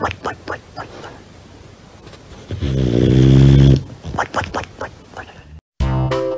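A sleeping dog snoring: one long, loud snore a little over two seconds in, with short soft puffs of breath before and after it. Guitar music starts suddenly near the end.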